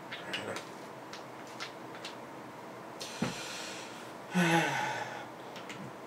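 Small clicks and taps of a vape atomizer and box mod being handled on a tabletop after the coil has been dripped with e-liquid. About four and a half seconds in comes the loudest sound, a short breathy vocal sound.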